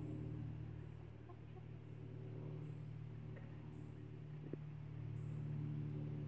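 A steady low hum throughout, with a few faint, short clucks and pecking sounds from a flock of lavender Ameraucana chickens foraging in leaf litter.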